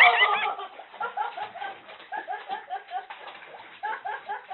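A person bursting into loud, high-pitched laughter, starting with a shriek and going on as a long run of quick 'ha' pulses, about three or four a second.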